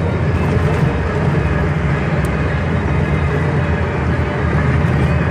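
Steady low drone inside a Volkswagen Logus at highway speed: tyre and road noise with the hum of the front wheel bearing, which the owner says is worn and singing.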